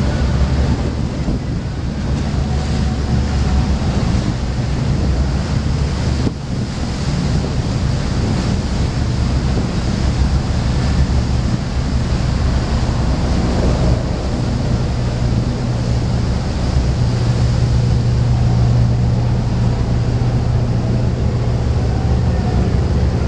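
Powerboat's engines running at low speed: a steady low hum that grows stronger past the middle, with water washing past the hull and wind on the microphone.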